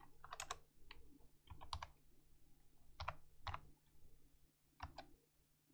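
Faint computer keyboard typing: a handful of separate keystrokes in small, irregularly spaced clusters, over a faint low steady hum.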